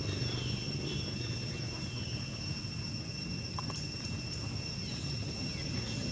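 Outdoor ambience: a steady high insect drone over a low rumble, with a few faint short chirps and a couple of small clicks.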